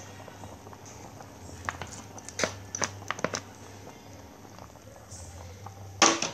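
Pot of chicken and corn soup at a rolling boil on a portable gas stove: a steady low hum under the bubbling. A run of light clicks and taps comes about two seconds in, and a louder clatter sounds near the end.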